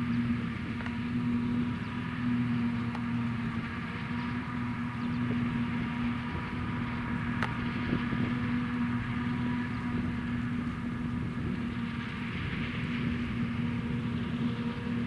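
Claas Jaguar 850 forage harvester and an MTZ 3022 Belarus tractor running together while the harvester chops maize for silage and blows it into the tractor's trailer: a steady machine hum at an even level.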